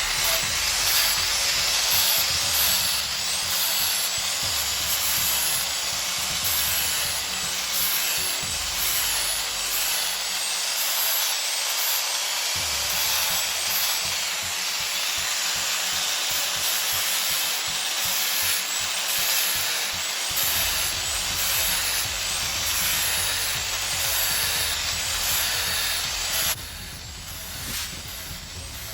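Sanding on a large wooden tree root: a steady abrasive hiss that cuts off abruptly shortly before the end.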